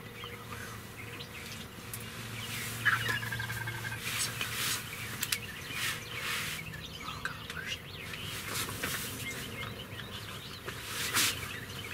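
Wild birds calling outside, with a wild turkey gobbling once, a quick rattling run of notes, about three seconds in.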